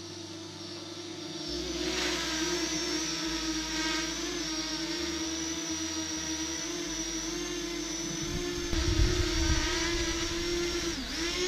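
Small quadcopter drone's propellers whining steadily in hover, growing louder about two seconds in as it flies closer. In the last few seconds a gusty low rumble hits the microphone, and the motor pitch dips briefly near the end as the drone comes down toward the hand.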